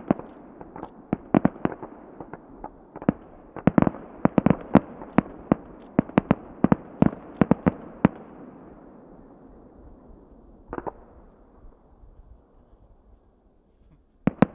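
Aerial fireworks bursting in a rapid barrage of sharp bangs with an echoing rumble, thinning out after about eight seconds to a single bang near eleven seconds, then a few more bangs at the very end.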